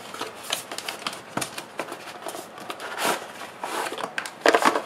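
A cardboard retail box being opened by hand, with rustling and scraping of cardboard and the plastic packaging tray as it is slid out, plus scattered small clicks. A short pitched squeak near the end is the loudest sound.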